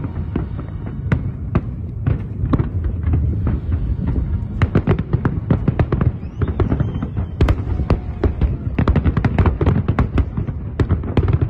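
Large aerial fireworks display: a rapid barrage of sharp bangs and crackles over a low, continuous rumble, growing denser about halfway through.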